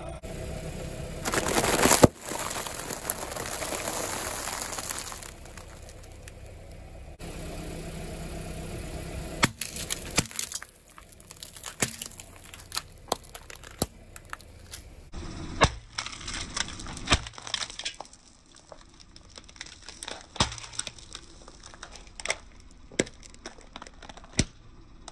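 Car tire rolling over and crushing crunchy objects: a loud burst about two seconds in, then a long run of sharp cracks and crackles as things break under the tire.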